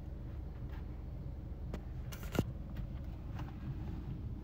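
Steady low background rumble, with a couple of faint short clicks about two seconds in.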